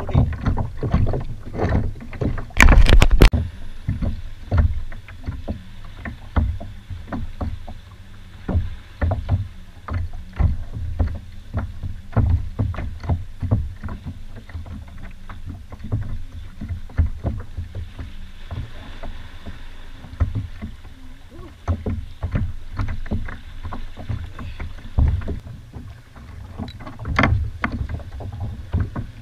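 Water lapping and knocking against a Malibu kayak's hull: irregular bumps and splashes over a low rumble, with one loud knock about three seconds in.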